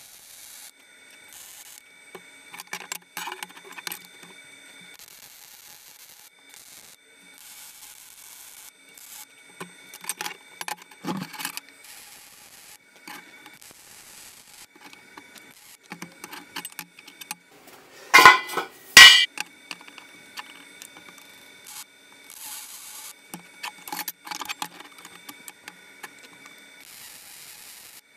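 Lincoln Electric 210 MP welder's gun laying short tack welds on steel square tube, the arc crackling in several stop-start bursts of a second or two. Two loud sharp metal knocks come about two-thirds of the way through, with light clinks of steel being handled in between.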